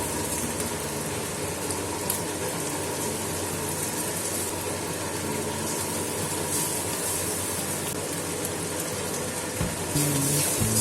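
Prawns and eggs frying in a pan, a steady sizzle that grows louder near the end.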